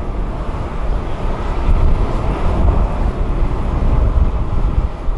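Boeing 737-800's CFM56-7B jet engines, heard as a loud, steady rumble with no whine standing out. Wind noise on the microphone adds a fluttering low rumble underneath.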